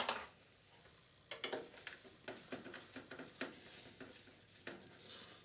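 Screwdriver turning screws out of the metal bottom cover of a Sanyo VHR-7700E video recorder: a sharp click at the start, then a run of small clicks and metal scrapes.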